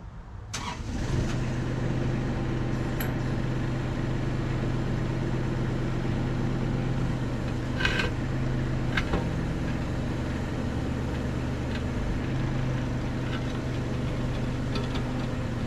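Kubota KX91-3 mini excavator's diesel engine starting about half a second in and settling into a steady idle. A few short sharp clicks over it, the loudest around the middle.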